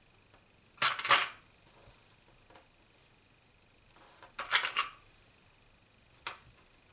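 Small plastic sewing clips clicking as they are snapped onto the edge of knit sweatshirt fabric lying on a wooden table. The clicks come in three quick bursts: about a second in, again past four seconds, and once more near the end.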